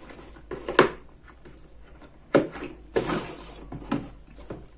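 Handling sounds of the drone's box being opened and its contents taken out: a few sharp knocks and a scraping rustle about three seconds in.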